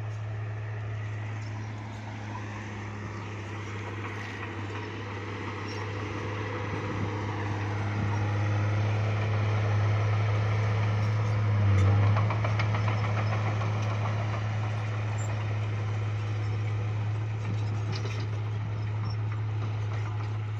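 Bulldozer's diesel engine running steadily with a low drone, growing louder toward the middle and peaking about twelve seconds in with a brief rattle, then settling.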